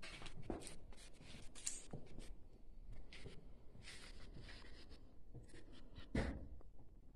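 Irregular scratchy rustling of someone moving through dry leaves and undergrowth, with a louder thump about six seconds in.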